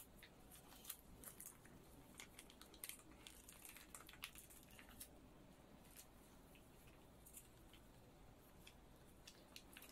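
Near silence, with faint, scattered crinkles and ticks of a thin plastic water pouch being handled.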